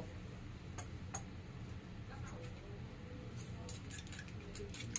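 Fork clinking against a ceramic bowl while beating a runny egg mixture: two light clicks about a second in, then a quick run of clinks over the last couple of seconds. A low steady hum lies underneath.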